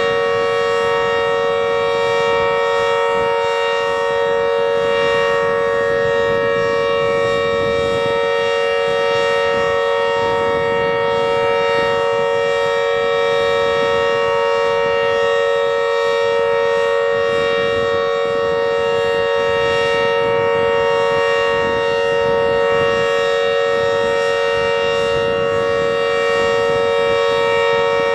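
Emergency alert alarm sounding a loud, steady siren tone: several pitches held together as one chord, unchanging, with no rise or fall.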